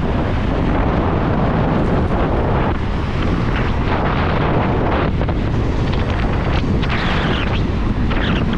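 Loud, steady wind buffeting the microphone of a rider on a fast-moving electric motorcycle, with no clear motor sound above it.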